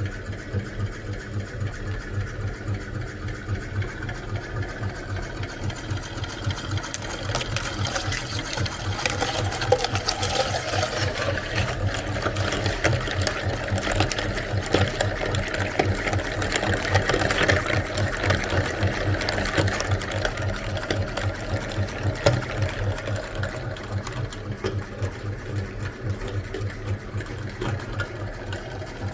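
Electric meat grinder running with a steady pulsing hum as it grinds eggs. Wet crunching and crackling join in from about seven seconds in.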